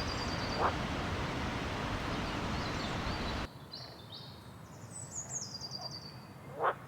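Tropical forest ambience: a steady hiss that cuts off abruptly about halfway, high-pitched stepped bird calls falling in pitch, and a short rising call twice, loudest near the end.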